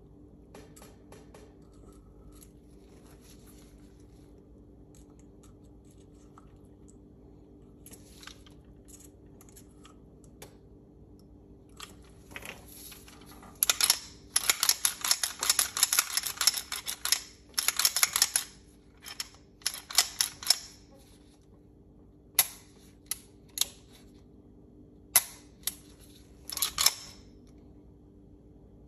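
Metal parts of a Tanfoglio Stock II pistol clicking and sliding as it is handled: quiet at first, then a dense run of clicks and rattles about halfway through. Separate sharp clicks follow as the slide and action are worked.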